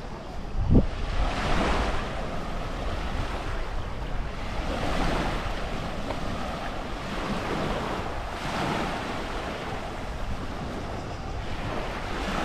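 Sea waves washing onto the shore, each surge swelling and fading about every three to four seconds, with wind rumbling on the microphone and a brief thump about a second in.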